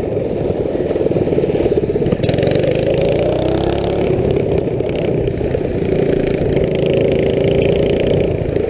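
Small go-kart engine running loud through its aftermarket exhaust, its pitch rising and falling as the throttle changes.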